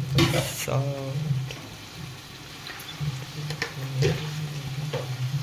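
Salt poured into a steel pot of frying masala, a brief hiss lasting about half a second right at the start, over a low steady hum.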